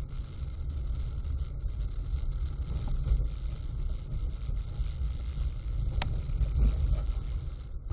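Steady low drone of a car driving on a snow-covered highway, heard from inside the cabin, with a single sharp click about six seconds in.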